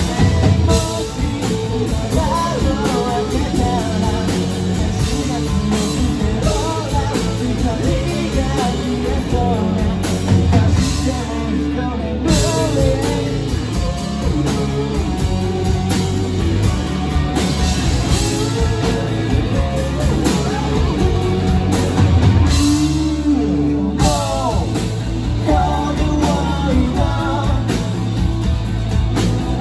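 A rock band playing live: distorted electric guitars, bass guitar and a drum kit, with a man singing lead over them.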